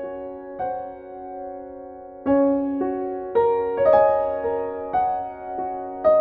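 Background music: slow, gentle solo piano, single notes and soft chords struck and left to ring and fade, a new note or chord about every half second to second.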